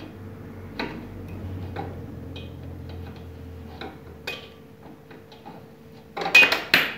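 Steel hand tools clicking as a 17 mm socket on an extension bar and a wrench tighten a motorcycle's rear shock absorber mounting bolts: light clicks about every half second, then a short run of louder metal clanks near the end.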